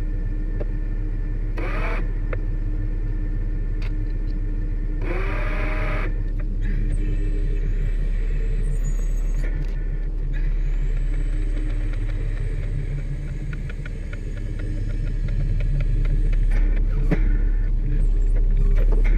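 Bucket truck's engine and hydraulic boom running as the bucket is swung and lowered: a steady low rumble with a few brief squeaks and short high whines over it.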